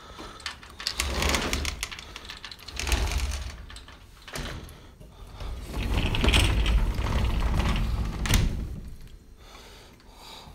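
Handling noise from a handheld phone being moved about among furniture: rubbing, rustling and knocks with a deep rumble, in bursts about a second in, around three seconds, and a longer one from about six to eight and a half seconds.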